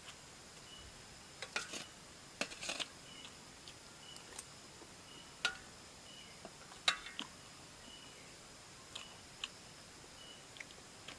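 Eating sounds from a noodle mukbang: irregular sharp clicks and short scrapes of utensils against a bowl, a dozen or so spread unevenly, none loud.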